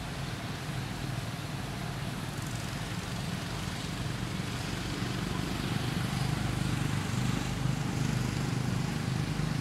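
Steady low rumble under an even hiss, with no distinct events, growing a little louder about halfway through.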